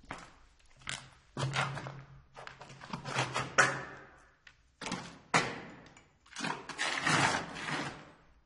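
Footsteps and shuffling movements on a concrete tunnel floor: irregular steps and scuffs, some heavier than others, echoing in the tunnel.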